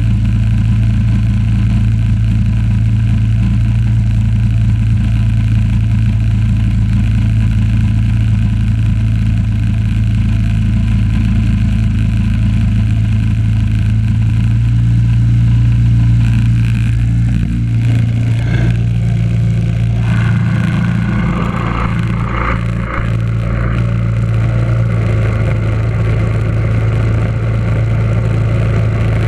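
1976 Simplicity garden tractor's engine running steadily under way. About two-thirds of the way through, its note briefly wavers and there is some scraping and clatter.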